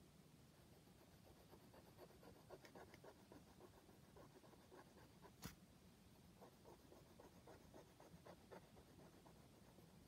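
Faint scratching of a felt-tip marker drawing short strokes on paper, with one sharp click a little past halfway.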